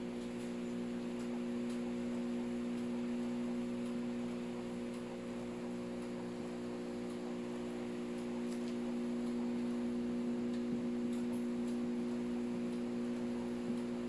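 Microwave oven running with a steady electrical hum while it heats.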